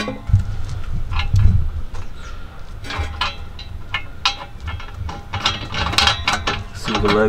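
Invidia N1 exhaust pipe being fitted by hand at its flange joint: irregular metallic clicks and clinks of the pipe and its bolt hardware, thickest in the second half, with a few dull knocks near the start.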